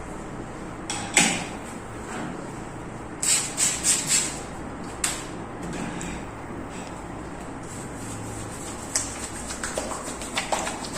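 Scattered sharp smacks over a steady low hum: a loud one about a second in, a quick run of four about three seconds in, and a run of lighter ones near the end.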